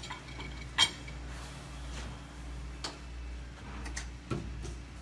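A few sharp metal clinks, the loudest one with a short ring about a second in and fainter ones later, over a steady low hum.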